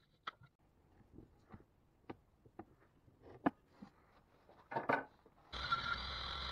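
Light knocks and clicks of wooden workpieces being handled and set down, a dozen or so scattered taps with a louder pair just before five seconds. About five and a half seconds in, a steady hum with a faint whine starts and holds.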